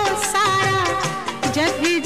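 Hindi film lullaby (lori) playing: a sustained melody line with gliding ornaments over rhythmic accompaniment.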